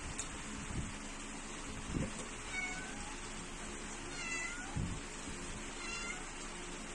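A cat meowing three times, short calls a second or two apart, the middle one the clearest. A couple of dull knocks and a steady low hum run underneath.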